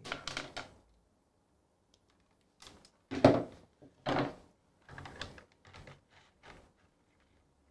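Hands handling control wires and plastic push-button contact blocks on a wiring board: a handful of separate knocks and clicks, the loudest about three seconds in.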